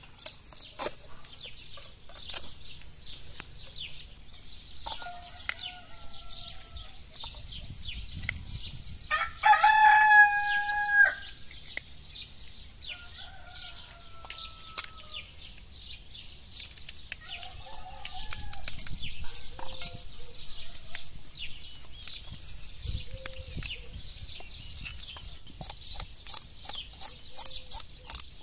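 A rooster crows loudly about ten seconds in, and softer chicken calls come before and after it. Near the end, a knife scrapes scales off a fish in quick regular strokes.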